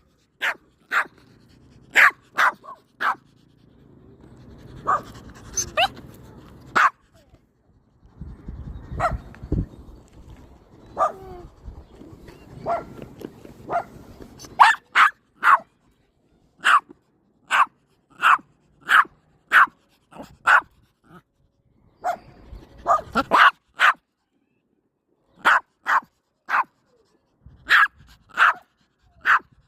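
Puppy barking in short, high yaps, again and again, in bouts with brief pauses between them.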